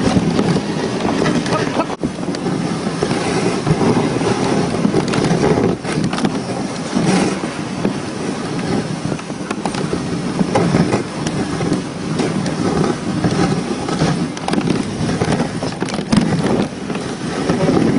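Dog sled gliding over a snow trail: the runners scrape and rumble steadily with frequent small knocks, and wind buffets the microphone.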